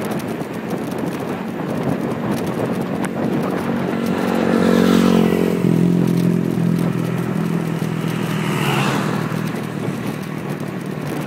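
Wind and road noise from a moving bicycle, with rattles and knocks, while a motor vehicle's engine passes close by from about four to nine seconds in, its pitch dropping as it goes past.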